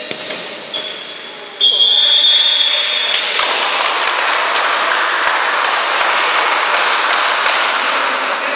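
A referee's whistle blast, about a second and a half long, starting about one and a half seconds in, followed by spectators cheering loudly and clapping in a steady rhythm, about two or three claps a second, in a sports hall.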